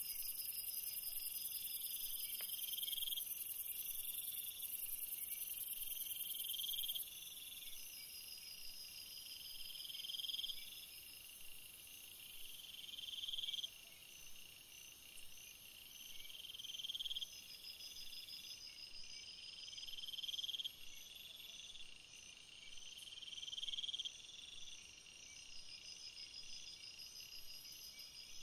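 Insects calling: high-pitched trills that swell and cut off about every three to four seconds, over a steadier, even higher buzz that drops away about seven seconds in.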